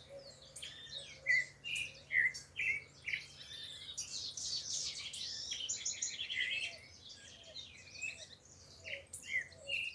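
Birds chirping and calling: many short repeated chirps and whistles, with a denser burst of twittering around four to six seconds in.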